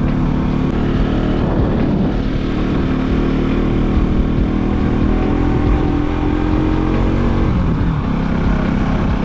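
Motorcycle engine running while the bike is ridden, its pitch shifting with the throttle and dropping near the end, over a steady low rumble.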